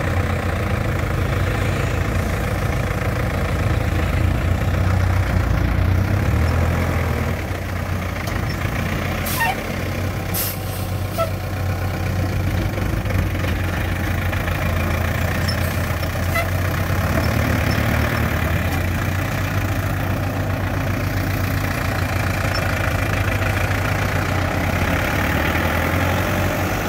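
Light dump truck loaded with sand, its diesel engine running steadily at low revs as it creeps across soft sand. A few faint clicks come about ten seconds in.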